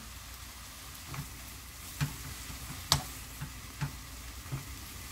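Blanched young perilla leaf shoots sizzling in perilla oil in a pan as they are stir-fried with a wooden spoon. The spoon knocks against the pan about six times, loudest about three seconds in.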